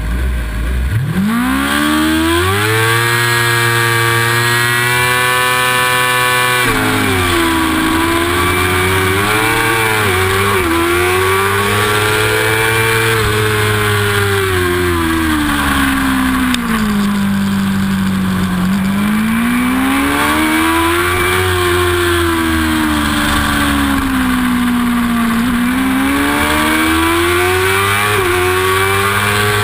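Onboard Yamaha R6 600cc inline-four race engine launching from the start grid: the pitch climbs steeply about a second in and holds high revs. A sharp drop near seven seconds in marks a shift. The revs then fall and rise in long sweeps through braking and acceleration, lowest about eighteen seconds in.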